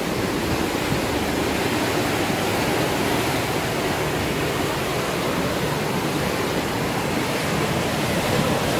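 Steady rushing of sea surf breaking on the rocks below, mixed with wind, with no distinct events in it.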